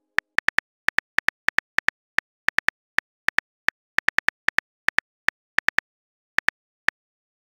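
Phone keyboard typing clicks, quick and uneven at about five taps a second, stopping shortly before the end.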